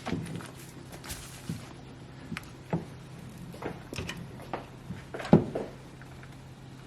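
Kitchen handling sounds: scattered knocks and clinks of dishes and utensils, one louder knock about five seconds in, over a steady low hum.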